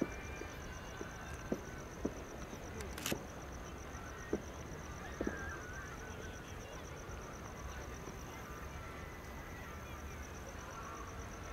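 Distant fireworks going off: a handful of soft pops and one sharper crack about three seconds in, over a low steady rumble. A steady, high pulsing trill runs underneath.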